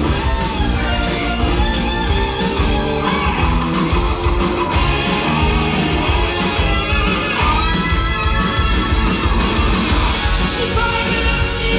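Background rock music led by guitar over a steady beat.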